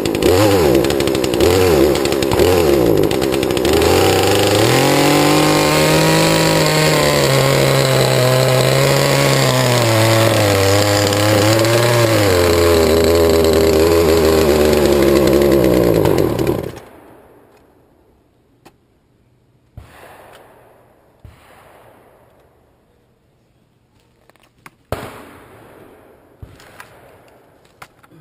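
Poulan two-stroke chainsaw blipped in quick revs, then held at high revs with the pitch wavering and dipping, before shutting off suddenly about 16 seconds in. A few faint knocks and clicks follow.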